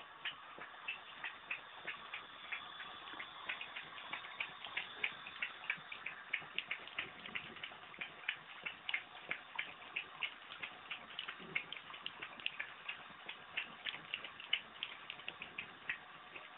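Boston terrier lapping water from a running bathtub faucet: a quick, steady run of wet tongue clicks, several a second, over the faint hiss of the running tap.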